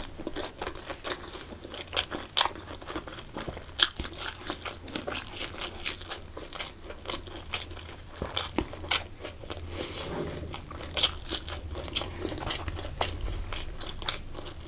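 Close-miked eating: a person chewing and crunching crisp food, with irregular sharp crackles of bites scattered through.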